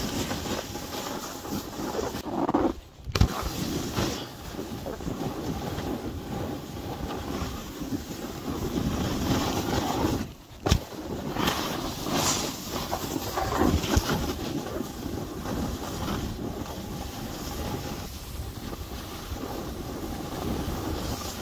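Snowboard sliding and scraping over snow, with wind rushing over the microphone. About three seconds in, and again about ten and a half seconds in, the noise cuts out for a moment and then a sharp thump follows.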